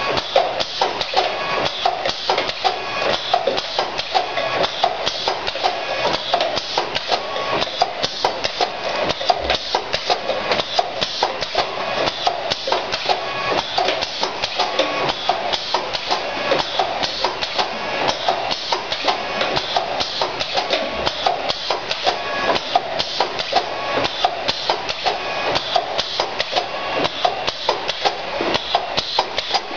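Automatic powder bottle-filling line running, with a dense, continuous clatter of rapid clicks and knocks from plastic bottles moving and jostling along its conveyor.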